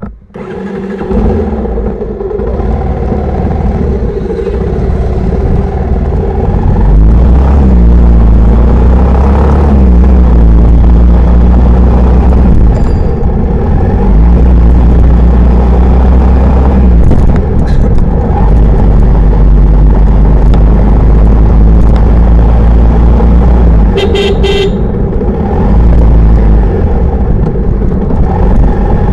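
A Bajaj Pulsar 150's single-cylinder four-stroke engine runs as the motorcycle rides along, getting louder over the first several seconds, with heavy wind rumble on the microphone. A vehicle horn beeps briefly about three-quarters of the way through.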